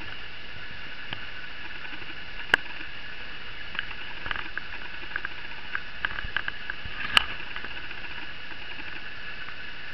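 A kitten's paws and claws pattering and clicking on a leather sofa, a scatter of soft taps with two sharper clicks about two and a half seconds in and again about seven seconds in, over a steady hiss with a faint high whine.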